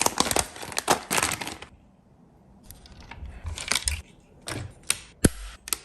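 Sharp clicks and clatter of small hard parts being handled as a toy model car is worked on and opened up: a dense run of clicks, a short pause, then scattered clicks with one louder knock near the end.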